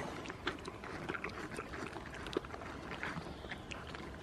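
Goat biting and chewing a tomato: a scatter of short smacking clicks.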